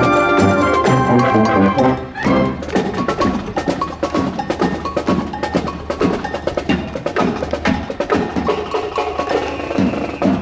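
Marching band music: a held brass chord for about two seconds, then a percussion passage of quick drum and block strokes with ringing mallet percussion over a steady low note.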